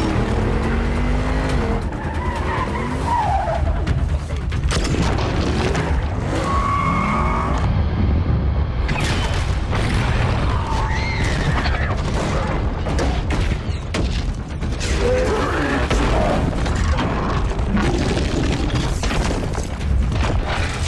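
Dense action-film battle sound: repeated explosions and heavy metal crashes, with car tyres skidding, over music.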